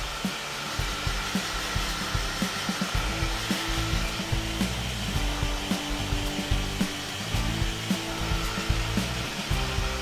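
Handheld hair dryer running steadily, a constant rush of blown air with a steady whine.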